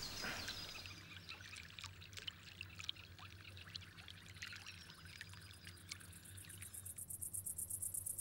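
Faint outdoor nature ambience: scattered short bird chirps and whistles over a soft hiss. From about seven seconds in, a fast, high-pitched pulsing chirr of roughly ten pulses a second sets in and grows louder.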